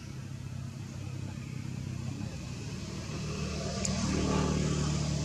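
A motor vehicle's engine running as a steady low hum that grows louder over the first four seconds as it comes closer, with one sharp click about four seconds in.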